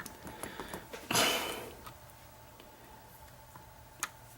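Faint clicks of metal lock-picking tools being handled against a lock, with a short sniff about a second in and one sharp click near the end.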